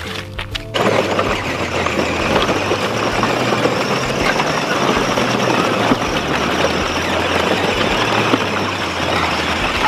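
Battery-powered ride-on toy vehicles driving through a muddy puddle, their wheels churning and splashing the water in a steady rush that starts about a second in.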